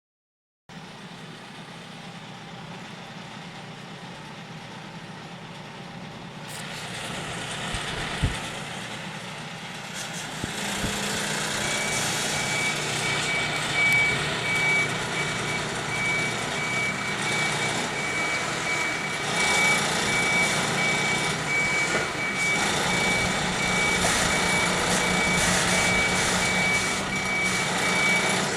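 Vehicle reversing warning beeper sounding a high, steady repeating beep over a running engine. The engine noise is heard alone at first and gets louder; the beeping starts about twelve seconds in.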